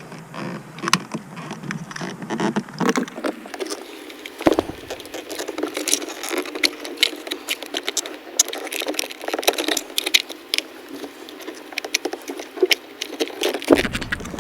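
Irregular small plastic clicks and rattles of a stubborn wiring harness connector being wiggled and pried loose from a power window switch panel.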